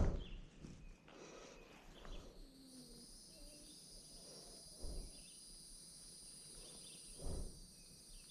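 Insects droning in a steady high buzz that starts about three seconds in, with a few faint bird chirps. Three brief low thumps, the first and loudest at the very start.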